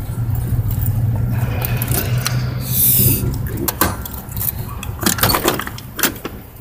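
Truck starter cranking the engine without it catching, a steady low drone for about three seconds, then a few sharp clicks as it fades out: the batteries are drained.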